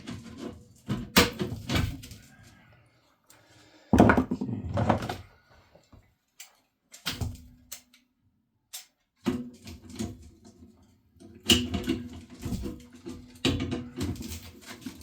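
A power tool cutting through the boiler's tank in short bursts with pauses between, a low steady hum under each burst and knocks in between.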